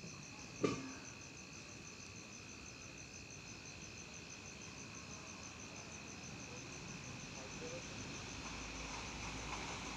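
Night insects chirping steadily: a continuous high trill with a faster, evenly pulsing chirp above it. A single short knock sounds just under a second in, and a low rumble builds near the end.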